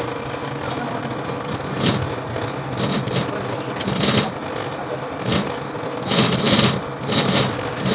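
Belt-driven coil winding machine running steadily, winding copper wire onto a transformer bobbin, with irregular short louder bursts of noise over its hum.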